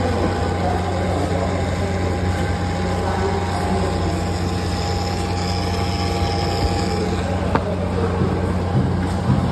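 Kia Seltos running at idle with the bonnet open, with a chattering from the right headlight unit, whose headlight leveler has failed. One sharp click about seven and a half seconds in.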